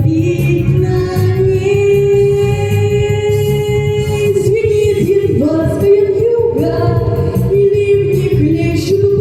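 A female voice sings long held notes over a backing track.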